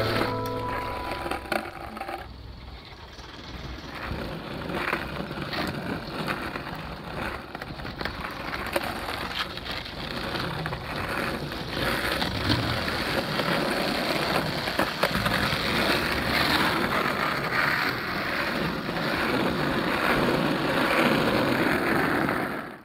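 Skateboard wheels rolling on street asphalt: a continuous gritty roll with many scattered clicks and clacks, growing louder about four seconds in and cutting off at the end.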